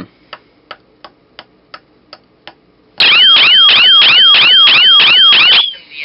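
About seven short, evenly spaced ticks, then a click and a small electronic alarm siren sounding really loud for about two and a half seconds. The siren is a fast, shrill warble, about three and a half up-and-down sweeps a second, and it cuts off suddenly. This is a panic alarm set off by a keypad code and then silenced by a button press.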